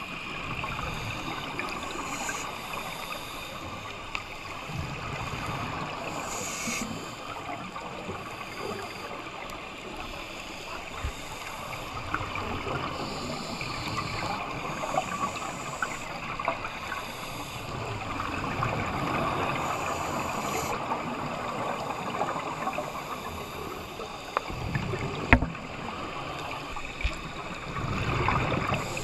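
Underwater ambience while scuba diving. Exhaled bubbles from the divers' regulators gurgle and rumble in swells every few seconds over a steady hiss, with scattered faint ticks.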